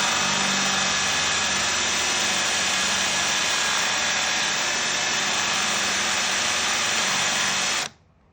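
Drill driver spinning a hidden-hinge jig's cutter at full speed, cutting a test mortise in wood: a loud, steady whine that cuts off suddenly near the end.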